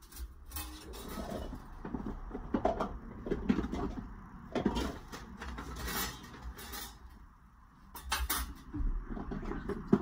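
Irregular clinks, taps and scrapes of metal hand tools and lead welding sticks being handled, with a quieter pause shortly before the last burst.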